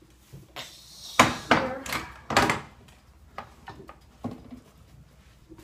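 Metal baking sheet of freshly baked cookies set down with three loud clanks about a second in, some ringing after them, then a few lighter knocks.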